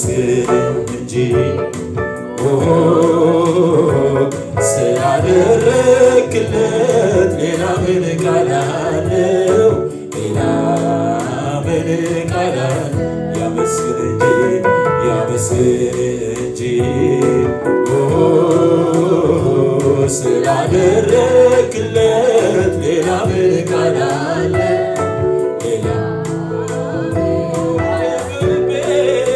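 A man singing an Amharic gospel worship song, over long held chords of instrumental backing.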